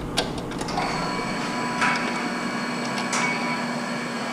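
A machine running with a steady hum and whine that swells in about a second in, with a few sharp knocks along the way.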